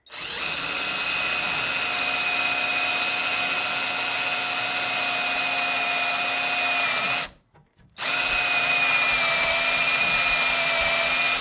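Electric drill running in reverse, boring a hole into a stripped screw head with the cutting end of a screw extractor bit. It gives a steady high whine, stops about seven seconds in, and starts again a second later.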